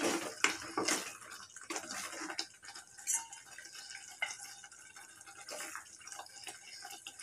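Faint, irregular small clicks, taps and wet drips from a cooking pot and utensils, slightly louder in the first second.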